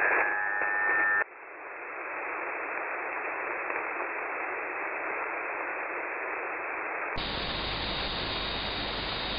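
Radio receiver static and hiss from a web SDR tuned to the 225 kHz longwave channel, opening with about a second of loud steady tones. About seven seconds in the hiss suddenly gets wider and brighter, with a thin steady high whistle in it.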